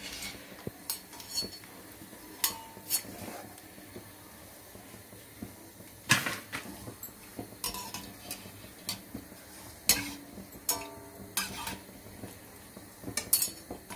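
Metal slotted spoon and wire-mesh skimmer clinking and scraping against an aluminium kadhai as fried besan sev are lifted out of hot oil, about a dozen irregular clinks, some with a short ring, the loudest about six seconds in. Under them, a faint sizzle of frying oil.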